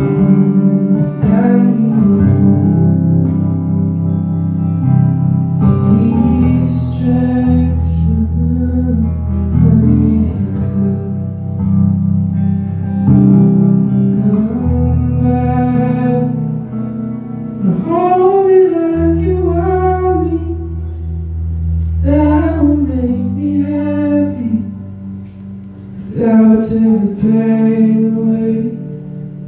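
A man singing a slow song live over his own Telecaster-style electric guitar, which holds sustained chords under the voice.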